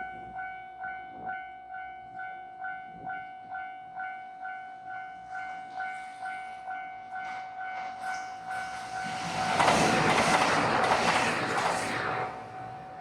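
Japanese level-crossing warning bell ringing steadily, about two electronic dings a second. About nine and a half seconds in, the Nanpu limited express diesel train rushes through the crossing for about two and a half seconds, loud enough to swamp the bell, which keeps ringing after the train has passed.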